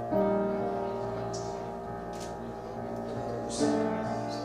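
Instrumental music: one chord is struck right at the start and another about three and a half seconds in, each ringing on and slowly fading.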